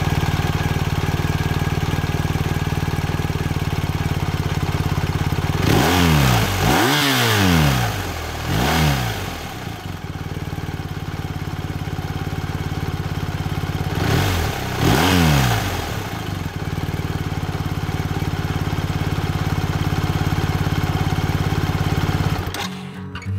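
BMW R1250R's 1254 cc boxer twin idling steadily, with quick throttle blips in which the revs rise and fall back, several in a row partway through and two more later. The engine sound stops suddenly near the end.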